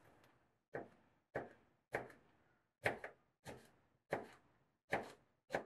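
Kitchen knife slicing a red chili pepper on a cutting board: a series of crisp knife-on-board strikes, about nine of them, each roughly half a second to two-thirds of a second apart.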